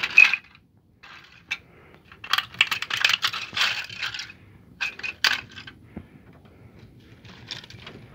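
Hard plastic model truck parts cracking and clattering as bare feet stamp and press on them: a sharp crunch at the start, a single snap, then a dense run of crackling from about two to four seconds in, a few more snaps around five seconds and a softer rattle near the end.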